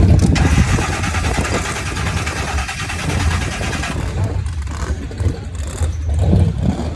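Starter cranking the supercharged engine of a 1964 Chevy II Nova, a fast whirring that stops about four seconds in without a clear catch, over a deep engine rumble: the car is having trouble starting.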